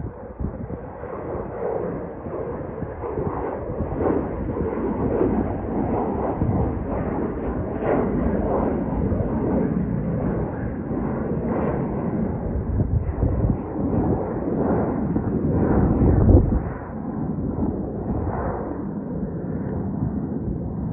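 Jet airliner climbing out after takeoff: its engines give a loud, steady roar that builds over the first couple of seconds and is strongest about three-quarters of the way through.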